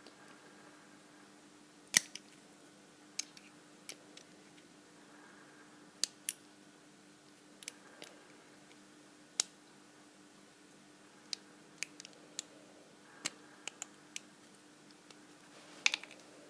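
Hand tools working an Abus 72/40 padlock as it is taken apart: scattered sharp metallic clicks and taps, the loudest about two seconds in, over a faint steady hum.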